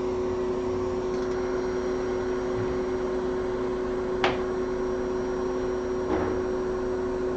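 Steady hum of a workbench blower fan with a held tone, and two small sharp clicks or taps, the first about four seconds in and a fainter one about two seconds later.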